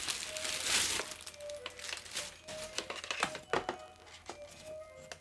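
Clear plastic bag crinkling as a round floor-lamp part is pulled out of it, loudest in the first second, then scattered light taps and knocks as the part is handled. Soft background music with a few held notes underneath.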